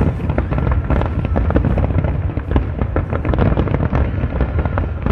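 Large fireworks display: many bangs and crackles in quick succession over a continuous deep rumble.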